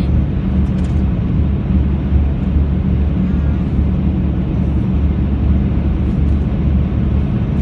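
Steady low rumble of a car's engine and tyres on a motorway at cruising speed, heard from inside the car.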